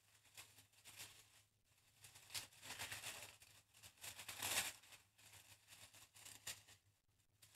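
Tissue paper rustling and crinkling as a hand pushes it aside inside a cardboard box, faint, with two louder stretches about two and four seconds in.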